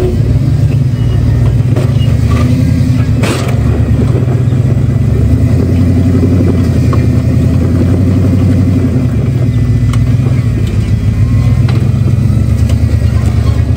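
Rock-crawling buggy's engine running loud and steady under load as the buggy crawls up a rock ledge, with a single sharp knock about three seconds in.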